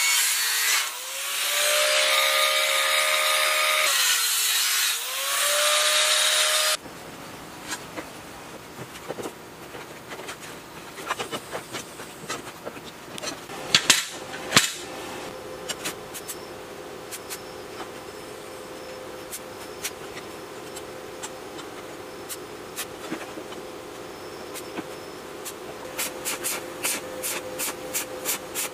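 Handheld angle grinder cutting steel plate with a cutting disc, its motor pitch sagging twice under load and recovering. It stops abruptly a few seconds in. A quieter stretch follows with scattered clicks of metal plates being handled and two sharp metal clacks about halfway. A steady hum runs through the second half, and near the end comes the rapid crackle of an arc welder striking.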